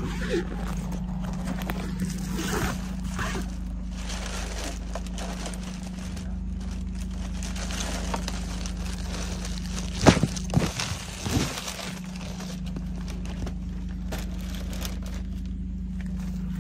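Inside a car while driving: a steady low road and engine drone, with a few sharp knocks and rustles about ten seconds in.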